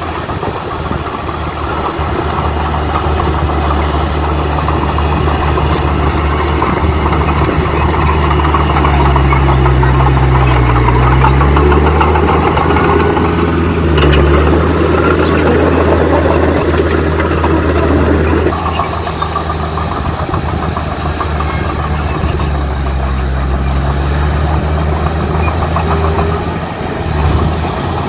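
Heavy earthmoving machine's diesel engine running steadily under way, its revs dipping and recovering twice. It is louder and noisier through the middle stretch.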